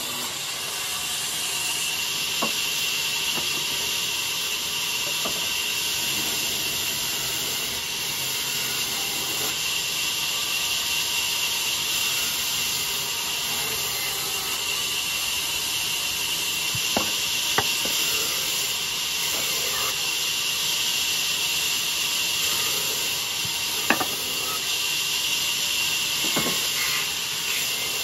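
Large vertical band saw cutting lengthwise through a log: a steady high hiss of the blade in the wood, broken by a few sharp knocks.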